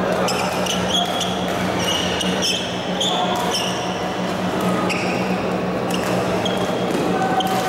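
Badminton shoes squeaking in short chirps on the court mats, with sharp racket-on-shuttlecock hits, echoing in a sports hall over a steady low hum.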